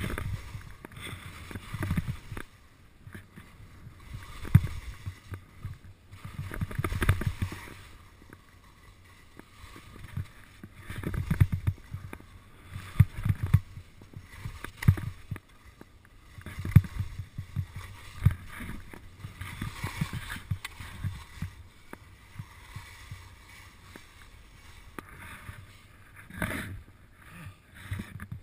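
Skis scraping over hard-packed snow through short turns in moguls: a scraping swoosh every two seconds or so, with low thumps as the skis hit the bumps.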